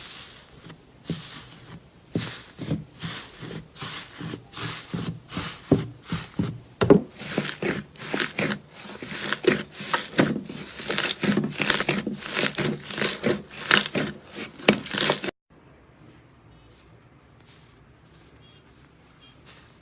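Slime being squeezed and stretched by hand, giving off quick, irregular pops and crackles, several a second. The sound cuts off suddenly about three-quarters of the way through, leaving only faint ticks.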